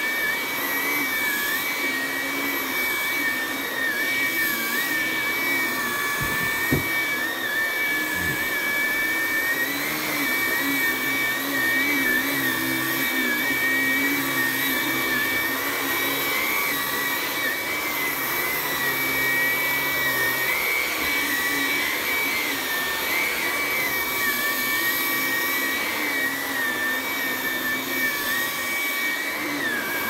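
Hart 20V brushless cordless stick vacuum running steadily while pushed over carpet: a high motor whine that wobbles slightly in pitch over a rush of airflow. There is one brief knock about seven seconds in.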